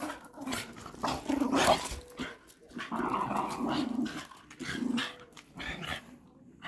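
Two Patterdale terriers growling at each other in play as they wrestle and tug over a stick, in several rough bouts with short pauses, dying away about six seconds in.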